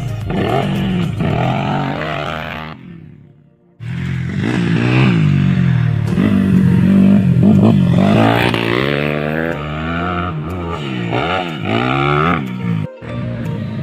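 Motocross dirt bike engines revving hard, the pitch climbing and dropping again and again as the throttle is opened and closed. The sound fades out about three seconds in and cuts back in loud a second later, with another brief break near the end.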